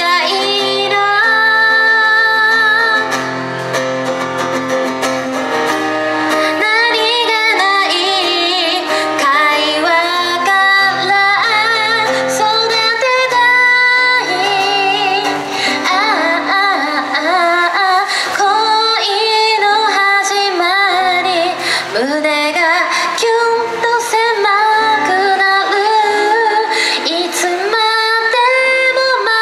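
A woman singing a pop song into a microphone, accompanied by her own strummed acoustic guitar.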